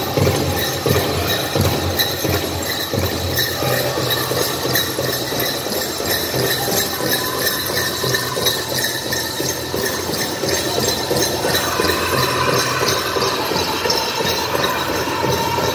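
Powwow drum group playing for the couples dance: a big drum beaten in a steady beat under the singers' voices, with jingling mixed in.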